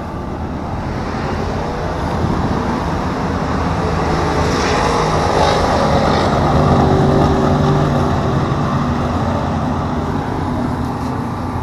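A vehicle engine runs nearby over a steady rumble of background noise. It grows louder toward the middle and then eases off.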